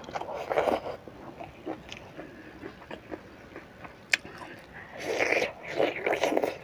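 Close-up eating sounds: chewing a mouthful, then a sharp click and a burst of biting and chewing into a piece of fried fish dipped in sambal about five seconds in.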